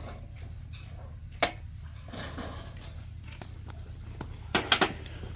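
A few sharp clicks and knocks of tools being handled on a metal cart: one about one and a half seconds in and a quick cluster of three or four near the end, over a steady low hum.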